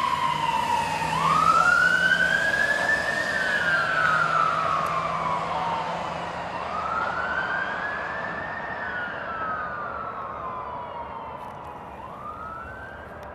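Fire truck siren on a slow wail, rising and falling in pitch about every five and a half seconds and fading as the apparatus drives away.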